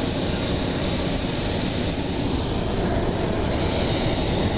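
Hot air balloon's propane burner firing in one long, steady burn.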